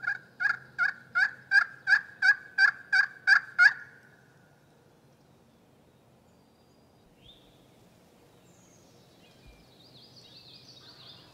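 A run of about eleven turkey yelps, evenly spaced at roughly three a second and growing louder, ending abruptly after nearly four seconds. Faint high bird chirps follow later.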